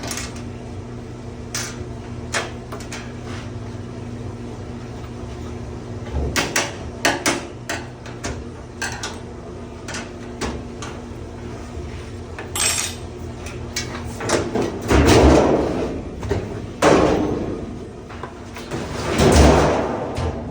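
Washer cabinet and sheet-metal panels being handled during teardown: scattered clanks and knocks, then two longer scraping sweeps near the end that are the loudest part, over a steady low hum.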